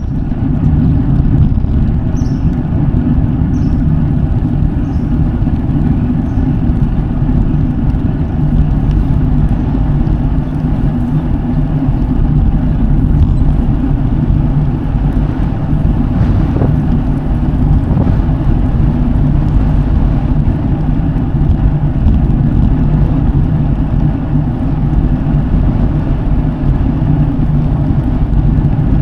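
Road bike tyres rolling steadily on a paved road, a continuous low rumble with no letup.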